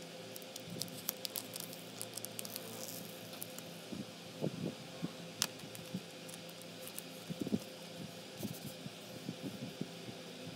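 Clear plastic film wrapped around a new drawing tablet crinkling and rustling as the tablet is handled, turned over and the wrap is pulled back. The sound comes as scattered light crackles and a few soft thuds over a faint steady hum.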